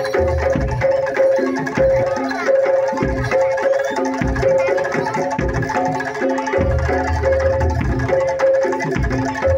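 Live Indonesian percussion-ensemble music, with tuned metal percussion playing short repeating notes that alternate between a higher and a lower pitch over irregular low drum beats.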